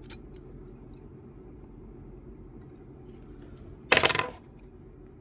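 A small metal object clinks sharply onto a hard surface once about four seconds in, ringing briefly, over a steady low hum. A few faint ticks of handling come near the start.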